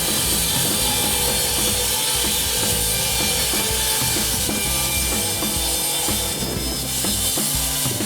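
Band blade of a Wood-Mizer LT70 WIDE sawmill cutting through a log, a steady hissing saw noise, over background music with a drum beat.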